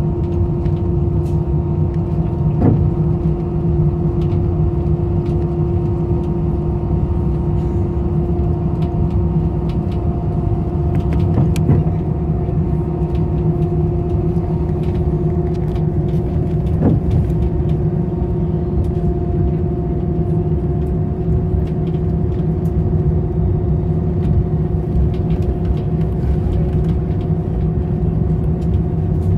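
Airliner cabin noise while taxiing: the jet engines' steady low rumble with a few constant humming tones, and a few light knocks and rattles from the cabin.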